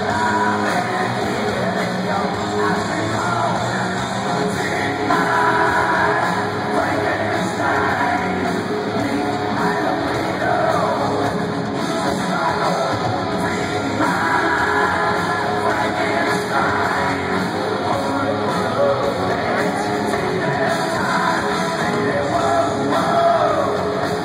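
Loud live rock music with a singer, heard from among the audience at a concert.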